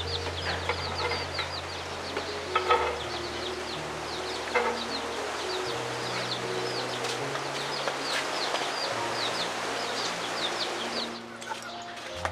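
Chickens, with chicks peeping in rapid short falling chirps, several a second, over soft background music. There are a few sharp clicks now and then.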